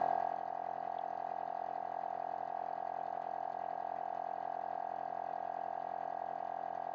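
Gobege portable piston air compressor running steadily, a constant even drone of motor and pump, as it inflates a truck tire from 30 toward 55 psi.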